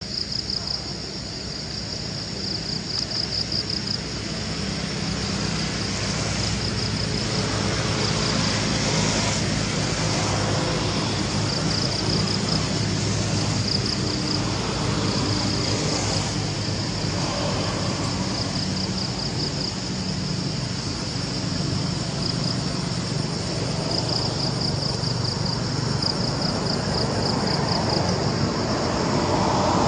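Steady outdoor background: a low rumble like distant road traffic under a high, pulsing buzz, growing a little louder over the first few seconds.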